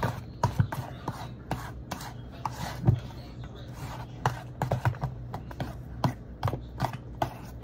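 Ingredients being mixed by hand in a bowl: a utensil clacking and scraping against the bowl in quick, irregular strokes.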